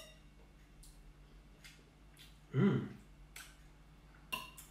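Knife and fork clinking and scraping against a ceramic dinner plate while smoked fish is cut and deboned, a few separate light clinks with a short ring. About halfway through, a brief vocal sound from the eater is louder than the clinks.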